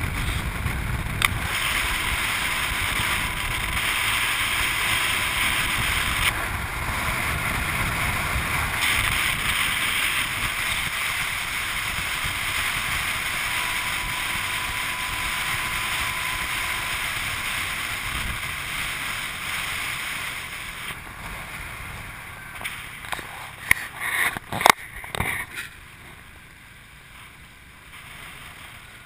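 Wind rushing over the microphone and road noise from a moving motorbike taxi. It eases off in the last third as the bike slows in heavy traffic, and a few sharp knocks come near the end.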